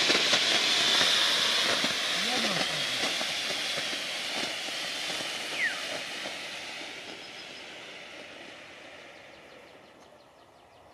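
Triplex TXF934 smoke generator hissing as its yellow smoke charge burns, with only one of its two ends lit because the other failed to ignite. The hiss fades steadily and is nearly gone by the end.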